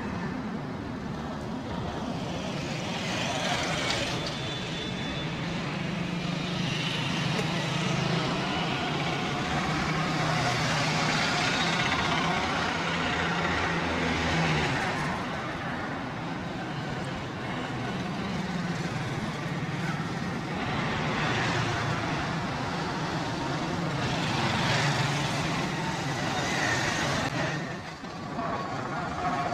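Street traffic noise: vehicles running and passing, with a low engine drone that swells and fades over several seconds.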